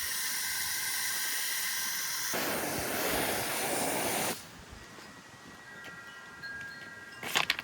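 Garden hose spraying water with a steady hiss that turns fuller about two seconds in and cuts off suddenly about four seconds in. After that come thin ringing chime tones, with a quick cluster of strikes near the end.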